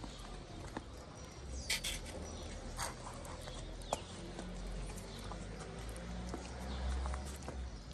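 Several cats eating wet cat food from foam trays: scattered small chewing and lapping clicks, with a few sharper clicks in the first half, over a low steady rumble.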